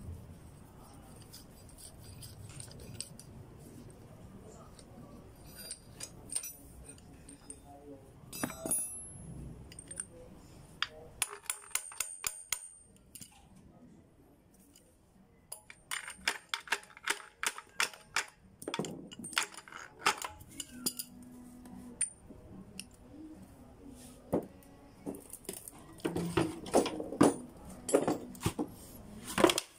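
Hand tools clinking and tapping against metal as bolts are worked off the rear housing of an Isuzu C240 manual transmission: irregular clicks and clinks in clusters, with a quick run of sharp clinks about twelve seconds in.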